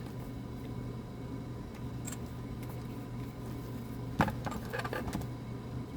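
A sharp plastic click about four seconds in, then a brief run of smaller clicks and rattles, as a handheld digital multimeter is handled and its case snapped together, over a steady low hum.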